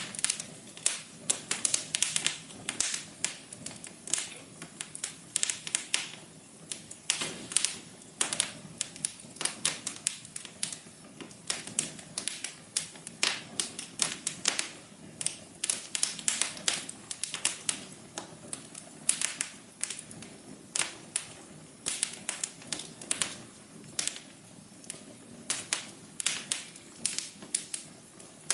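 Wood fire crackling: a steady stream of sharp, irregular pops and snaps over a soft low hiss.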